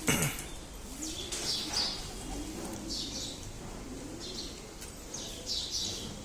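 Pigeons cooing: low rising-and-falling coos repeat about once a second, mixed with clusters of high bird chirps. A brief falling swish comes right at the start.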